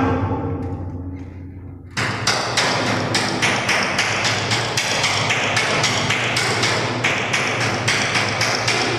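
Rhythmic knocking, about three knocks a second over a steady low hum; it dies away over the first two seconds, then starts again sharply and keeps an even beat.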